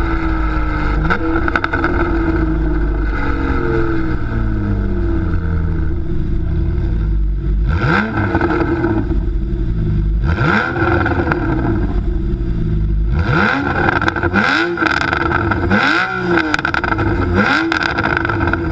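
Porsche 991 Carrera 4S flat-six engine heard through an Akrapovič exhaust. It runs under way for the first several seconds. Then, with the car stationary, it is revved in about five quick throttle blips, each rising and falling in pitch.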